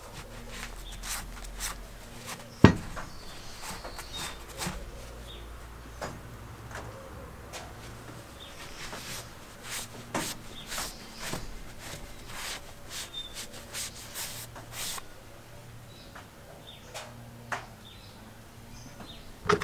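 Cloth rubbing and rustling over bare metal vise parts as they are wiped down after rust removal, with small clicks and knocks as the parts are handled; a sharp knock about two and a half seconds in is the loudest sound, and another comes near the end. A faint steady low hum runs underneath.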